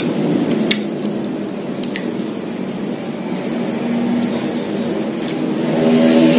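A motor engine runs with a steady low hum that grows louder near the end, with a few faint clicks over it.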